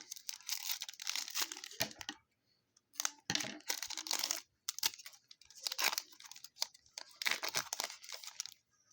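Foil trading-card pack wrapper being torn open and crinkled by hand, in several rustling bursts.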